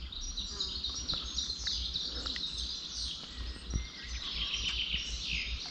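Songbirds singing: a dense run of short, high chirps and trills, with a few quick falling notes near the end.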